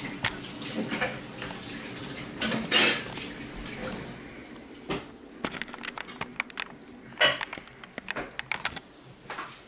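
Kitchen utensils clinking and scraping against cookware, a scraping stretch at first, then quick runs of sharp clinks in the second half.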